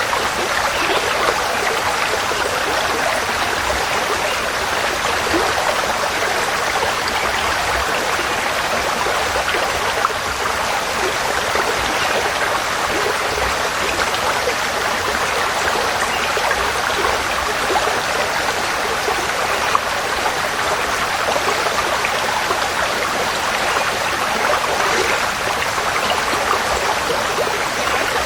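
Forest stream flowing steadily over stones, an even rushing and babbling of water.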